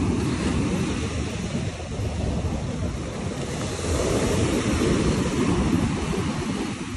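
Wind buffeting the phone's microphone over the steady wash of surf, a continuous low rumbling noise that swells a little partway through.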